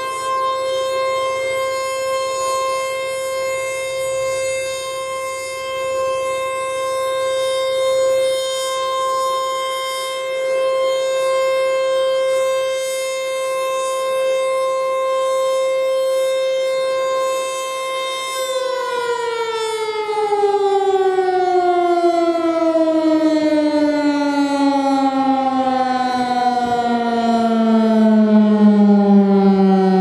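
Federal Signal Eclipse 8 electronic outdoor warning siren sounding its steady alert tone. About 18 seconds in, the pitch begins a slow, smooth fall as the siren winds down at the end of the alert signal.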